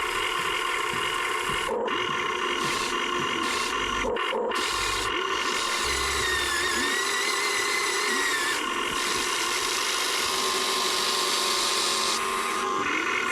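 Huina 1580 RC excavator's electric motors and gearboxes whining steadily as it works. The sound dips briefly a few times in the first half, and the pitch sags and rises again in the middle.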